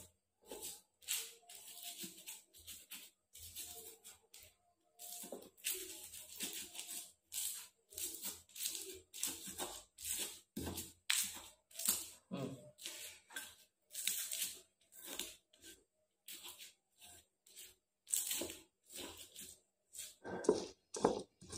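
Stone pestle crushing and grinding chillies, shallots and garlic in a stone mortar (Indonesian ulekan and cobek): a steady run of short, gritty crushing and scraping strokes, roughly one to two a second.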